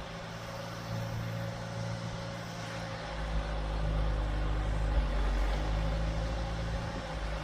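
An engine running steadily with a low hum, growing louder about three seconds in.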